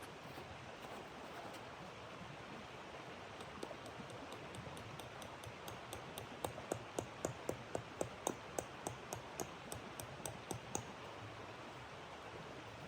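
A quick run of regular sharp clicks, about four a second, over a steady hiss; the clicks start a few seconds in, grow louder, then fade out near the end.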